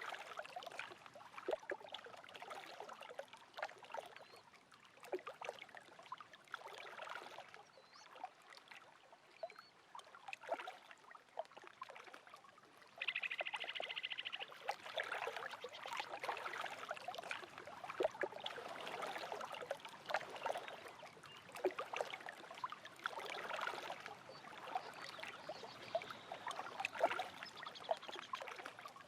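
Small lake waves lapping at the shore, with irregular wet slaps and gurgles. A few faint short bird chirps are heard. About 13 seconds in, a louder buzzing call lasts a second and a half.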